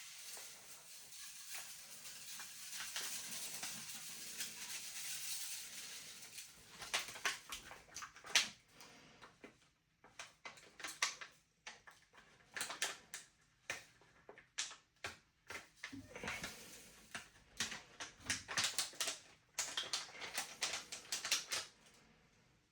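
Powdered washing machine cleaner pouring from its packet into the washer drum, a soft steady hiss for about six seconds, then irregular rustling and light clicks as the packet is shaken and handled.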